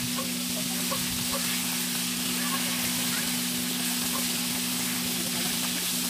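Hot oil sizzling steadily in a wok as scallops deep-fry, with scattered small crackles, over a steady low hum.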